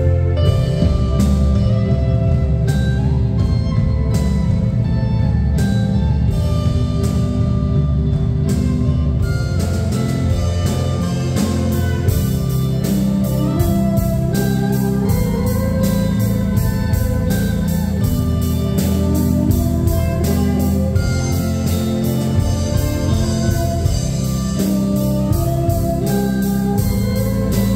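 Live rock band playing a Mandopop song: drum kit with a steady cymbal beat, electric guitars, bass and keyboard together.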